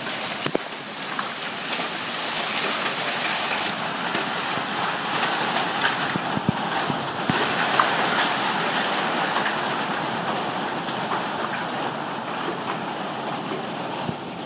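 Hailstorm with rain pouring down: a dense, steady hiss with scattered sharp ticks of small hailstones, about a quarter to half inch, striking.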